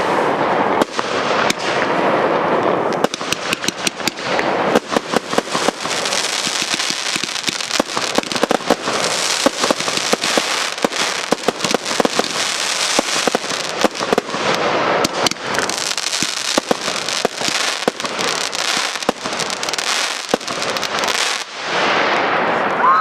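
Fireworks bursting in a dense run of crackling: many sharp cracks and pops over a continuous hiss, thinning out shortly before the end.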